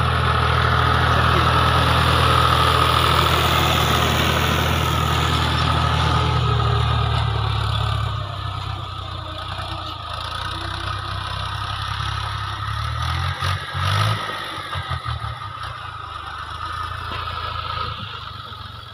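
Fiat 480 tractor's diesel engine running steadily as it pulls a tillage implement through the field. Loud at first, then quieter and less even from about eight seconds in.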